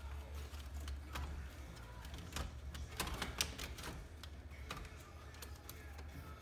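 Irregular small plastic clicks and ticks as a plastic trim panel tool pries the Honda Civic's centre dash trim and radio panel, rocking it against its retaining clips, with a few sharper clicks around the middle.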